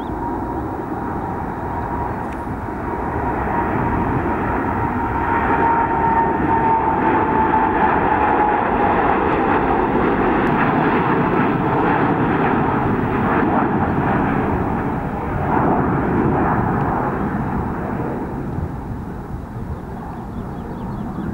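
Boeing 787 Dreamliner's twin turbofan engines at takeoff thrust. The jet noise swells as the airliner rolls past and lifts off, then slowly fades as it climbs away. A high engine whine sits on top and drops in pitch as the plane goes by.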